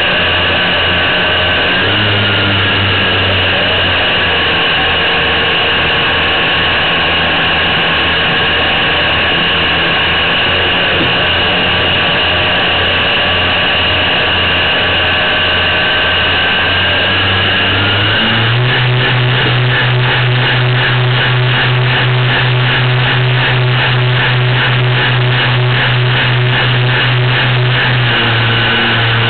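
Motors of a radio-controlled model PBY Catalina, heard up close from on board: a steady running note at low throttle that steps up in pitch and loudness about two-thirds of the way through as the throttle opens for the take-off run off snow, with a fast pulsing beat at the higher setting.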